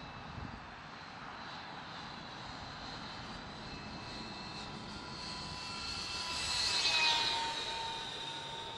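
Whine of an AEO 35 mm electric ducted fan powering a 1:25-scale J-29 Tunnan RC jet model in flight. It grows louder to a peak about seven seconds in as the jet passes, then fades with a slight drop in pitch.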